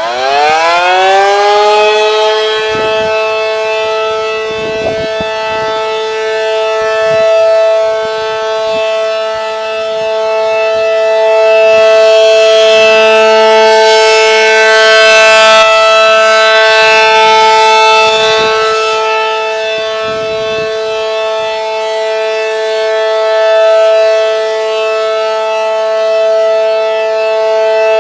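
ACA Allertor 125 civil defense siren with an 8/12-port rotor winding up, its pitch rising over the first two seconds, then holding a loud steady two-note chord in a test signal. The level swells and fades slowly.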